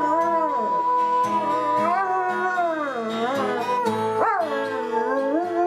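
A dog howling in long notes that glide up and down, over music with steady held tones and regular plucked beats.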